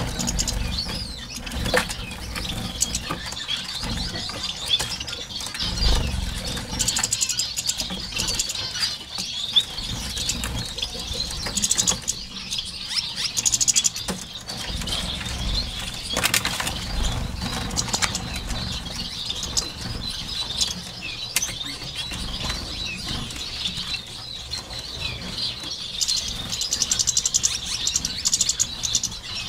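A mixed flock of caged finches, Gouldian finches among them, chirping and twittering constantly, with flutters of wings as birds fly between perches and a few light knocks.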